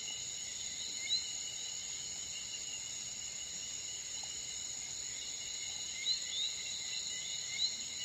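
Steady high-pitched chorus of insects, with a few short rising chirps about a second in and several more near the end.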